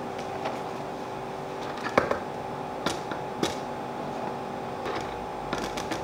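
A plastic measuring cup scooping flour from a plastic tub and knocking against the rim of a glass mixing bowl: a handful of light knocks and clicks, the sharpest about two seconds in, over a steady appliance hum.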